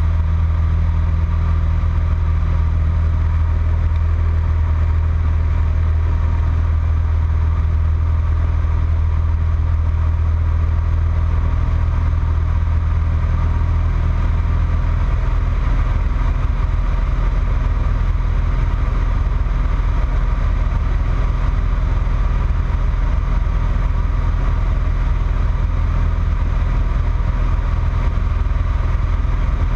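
Single-engine light aircraft's piston engine and propeller, heard as a steady drone inside the cabin with airflow noise, its low note shifting slightly about halfway through.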